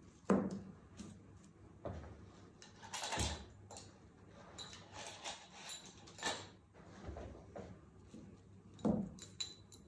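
Pinning a paper sewing pattern piece onto folded fabric by hand: soft rustling with several light knocks and clicks on the table, the sharpest just after it begins and others about two, three, six and nine seconds in.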